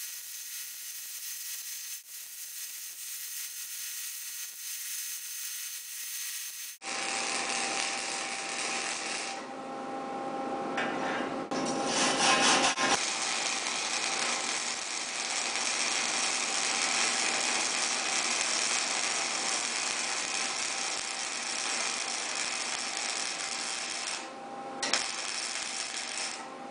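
Lincoln MIG-PAK 10 wire-feed welder arc crackling steadily as a bead is run along a steel beam, with a few brief breaks.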